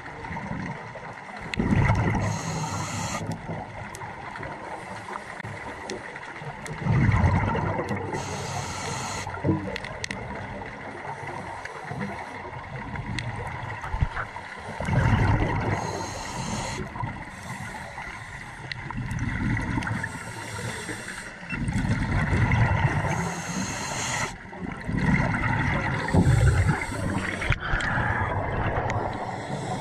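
Scuba diver breathing through a regulator underwater: a short hiss on each inhale and a louder low bubbling rumble on each exhale, repeating every four to six seconds.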